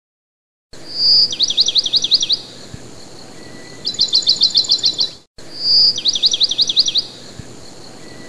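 Bird song from a looped recording: a short high whistle followed by a rapid trill of down-slurred notes, then a quicker trill, over a faint steady background. It starts under a second in and the same phrase plays again after a brief cut about five seconds in.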